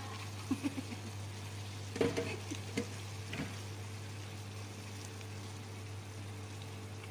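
Sliced eggplant frying in a non-stick pan with a steady sizzle, and a spatula stirring it, scraping and knocking against the pan a few times in the first three seconds or so, loudest about two seconds in.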